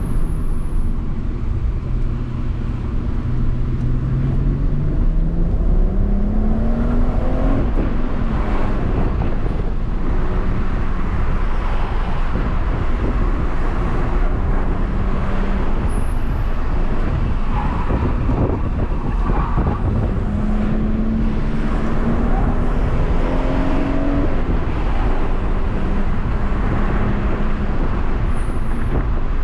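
BMW M140i's turbocharged 3.0-litre straight-six heard from inside the cabin, pulling under load on the road with loud tyre and road noise. The engine note climbs steadily twice, from about two seconds in and again about two-thirds of the way through, then drops away each time.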